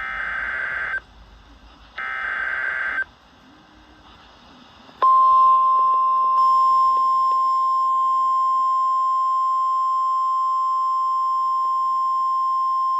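NOAA Weather Radio alert signal: two one-second bursts of screeching SAME data tones a second apart, which automatically activate weather-radio receivers. About two seconds later the steady, single-pitch 1050 Hz warning alarm tone starts and holds, announcing a severe thunderstorm watch.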